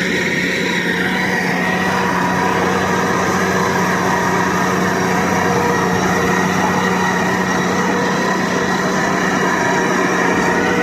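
Valmet tractor's diesel engine running steadily under load while pulling a land plane, a constant drone with no change in speed.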